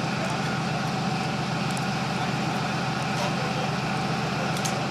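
A heavy engine idling steadily: a low, even drone with no change in speed.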